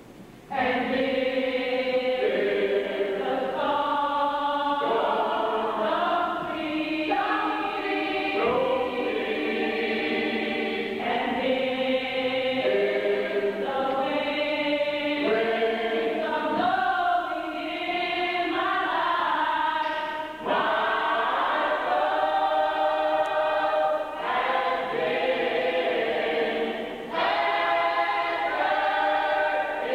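Church choir singing in parts, holding chords that change every second or two; the singing comes in about half a second in.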